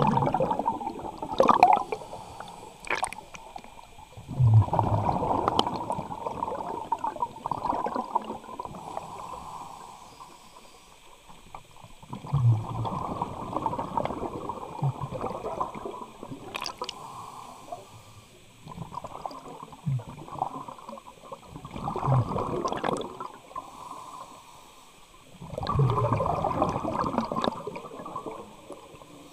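Scuba diver breathing through a regulator underwater: exhaled bubbles gurgle out in bursts of a few seconds, about six breaths, with a few faint clicks in between.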